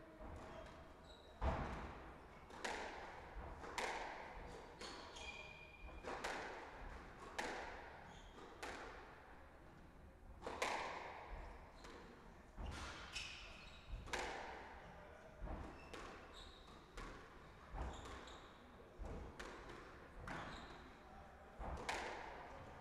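Squash rally: the ball cracks off rackets and the court walls about once a second, each hit ringing in the hall's echo, with short squeaks of court shoes on the wooden floor between hits.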